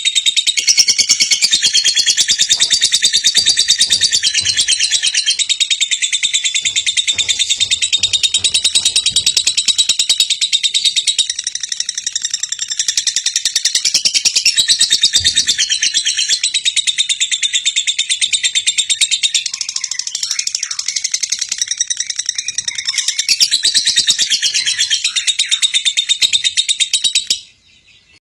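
Lovebird's ngekek, a long unbroken, rapid, high chattering trill that stops abruptly near the end.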